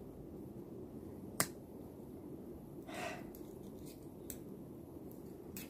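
A few sharp plastic clicks and snaps as electronic parts are pried apart by hand, the loudest about a second and a half in, with a short softer sound in the middle.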